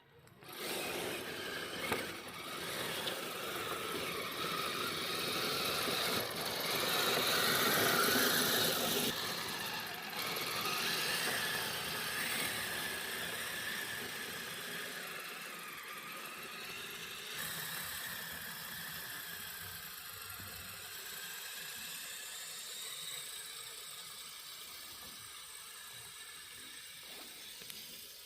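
Kyosho Blizzard RC snow tractor driving on metal tracks: a small electric motor's whine with the clatter and squeak of the metal track links. It is loudest about eight seconds in, then fades slowly.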